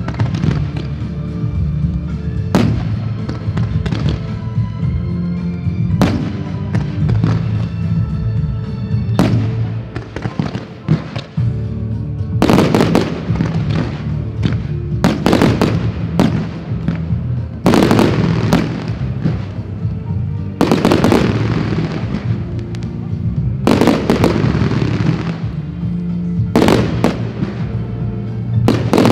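Fireworks exploding over music. A few sharp bangs come several seconds apart, then from about the middle loud bursts land roughly every three seconds, each trailing off in crackling.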